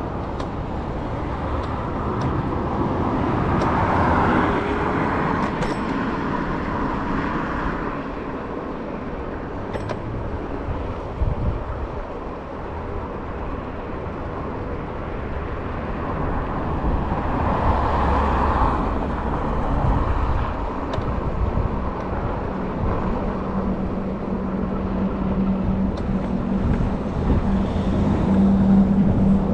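Riding noise on an electric scooter beside a road: a steady rush of wind and traffic that swells twice, with a steady low hum coming in over the last few seconds.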